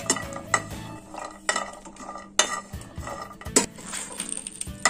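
A metal spoon stirring cashews as they dry-roast, without ghee, in a non-stick pan. The spoon gives irregular sharp knocks and scrapes against the pan, about six in all.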